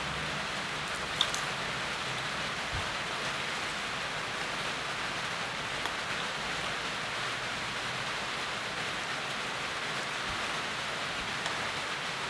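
Steady rain falling. One short sharp click about a second in.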